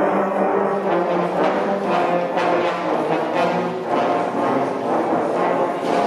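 Large combined school concert band playing, with trumpets, trombones and saxophones to the fore. The full band comes in together with a sudden loud entry at the very beginning, then plays on at a steady full volume.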